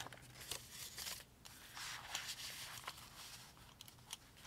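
Handling of a folded paper sheet and a planner binder: soft paper rustling with a few light clicks and taps as the binder is closed.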